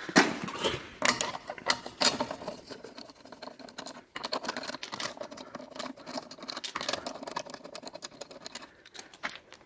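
Hand ratchet wrench clicking rapidly as it spins off loosened wheel nuts, in short runs of fast ticks.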